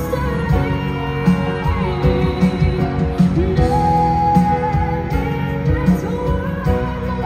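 Live pop song in concert: a young male voice singing over a band with guitar, as a duet between the singer and a recording of his younger self. One sung note is held about four seconds in.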